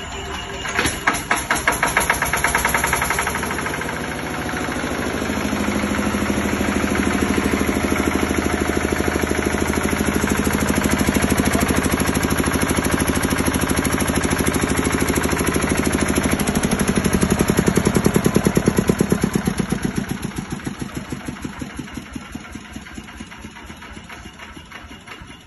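Single-cylinder diesel engine of a 10 kVA generator set, hand-cranked and catching about a second in, then running with a steady thudding beat. Over the last few seconds its beat slows and the sound dies down as the engine runs down.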